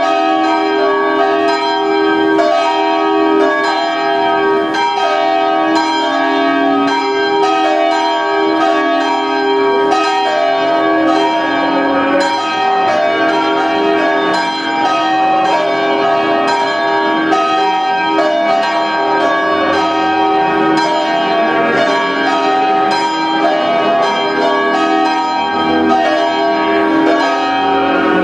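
Several church bells ringing together in a continuous peal, their strikes overlapping without a pause.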